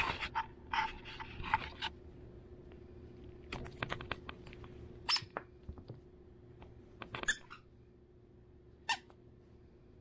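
Scattered rubbing, scuffing and sharp clicking noises from a hand brushing against the camera while handling a long-haired chihuahua puppy. A cluster comes in the first two seconds, with single clicks after that.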